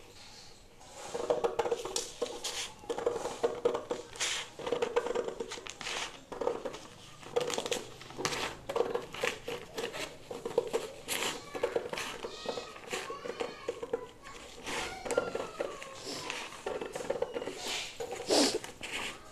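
Scissors cutting through a folded sheet of lined paper along a curved line: a steady series of irregular snips with paper rustling.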